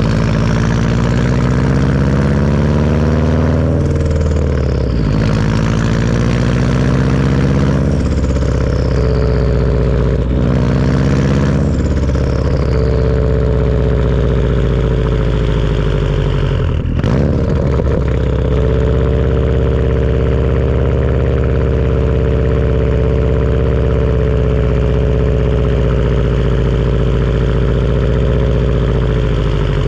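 Turbocharged Subaru engine with a Tomei turbo-back exhaust pulling through several gear changes, the engine note rising and dropping each time and a high turbo whistle sliding down in pitch at each change. About 17 seconds in there is a brief dip, then the engine holds a steady note while the whistle slowly rises.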